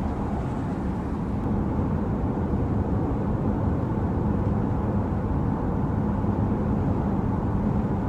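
Steady road and tyre noise inside the cabin of a Genesis GV70 driving on an expressway, with a low steady hum underneath.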